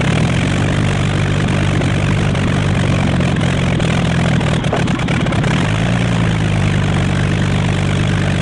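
Single-engine light plane's piston engine and propeller running steadily, freshly started by swinging the propeller by hand.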